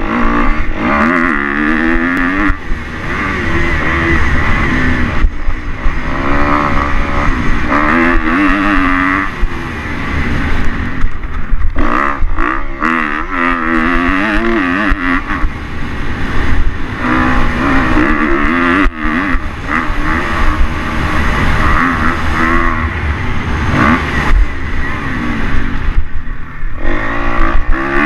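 Kawasaki KX250 motocross bike's engine heard from on board, revving up and falling back over and over as the throttle is worked through the track, with short dips every few seconds where the throttle is rolled off.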